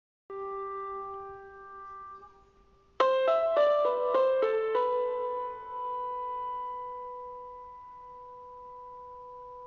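Background piano music: a held chord fades away, then about three seconds in a quick run of notes settles onto a long sustained note.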